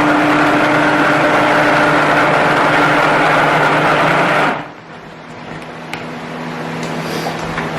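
Stick blender running steadily through soap batter, then switched off about four and a half seconds in, leaving a quieter hum.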